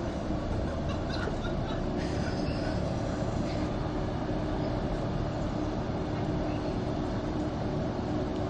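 Tram idling and creeping forward on its rails, a steady electric hum over street noise.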